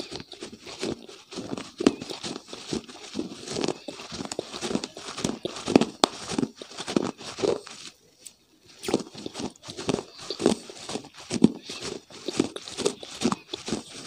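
Close-miked chewing, right at the mouth: a quick run of wet mouth clicks and crunching, with a short pause just after eight seconds.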